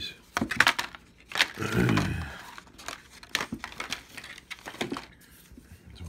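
Stiff clear plastic clamshell packaging crinkling and crackling in sharp snaps as it is worked open and the flashlight is pulled out. The snaps thin out near the end.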